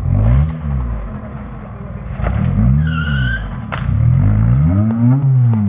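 Off-road 4x4's engine revving up and falling back several times in quick succession, as under throttle blips on a course. About three seconds in there is a brief high squeal.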